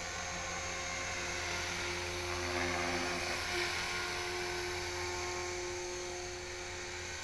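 HK-450GT electric RC helicopter in flight: the steady high whine of its electric motor and drivetrain with the whir of the spinning rotor blades, swelling a little about three seconds in.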